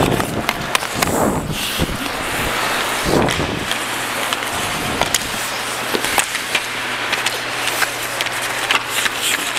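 Ice hockey skates scraping and carving on the ice, with sharp clacks of sticks and puck scattered throughout, over a steady low hum.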